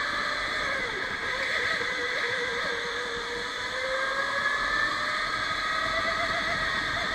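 Electric go-kart motor whining under driving, its pitch dipping about a second in and then climbing over the next few seconds as the kart speeds up, over steady tyre and track noise.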